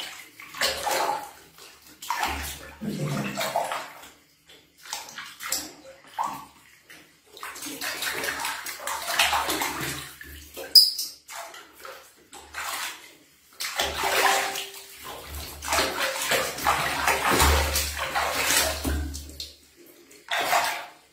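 Water splashing and sloshing in a plastic basin as a baby monkey is washed by hand, in irregular bursts with short pauses. About halfway through there is one brief high squeak.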